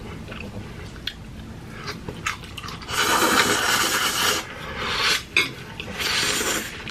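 Two people slurping thick spicy instant ramen noodles: three long, loud slurps about three, five and six seconds in, after a few soft mouth clicks.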